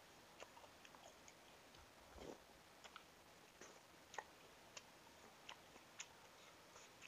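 Faint chewing of a mouthful of instant noodles, with scattered light clicks of a metal spoon and fork against a plastic bowl. A soft low thump comes about two seconds in.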